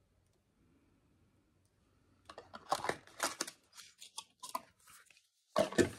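Near silence for about two seconds, then packaging rustling and crinkling in a string of sharp, uneven bursts as items are rummaged out of the box, loudest near the end.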